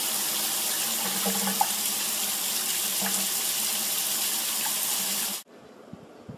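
Water running steadily from a tap, stopping suddenly about five seconds in.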